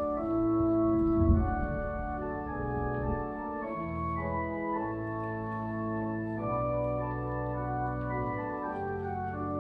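Church organ playing a hymn in held chords, the bass and upper notes changing every second or so.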